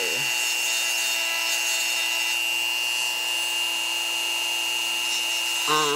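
Dremel rotary tool running at a steady high whine, its small grinding stone lightly working the acrylic of a lower denture.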